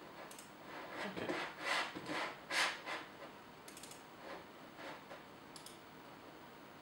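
Handling noise: a few seconds of irregular rubbing and scraping, followed by a couple of short light clicks.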